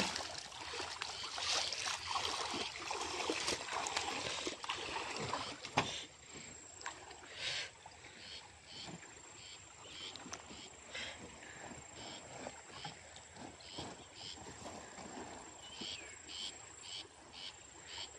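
Irregular splashing of feet and hands in shallow water for the first few seconds. After that, insects chirping in a regular rhythm of about two chirps a second over a thin, steady high whine.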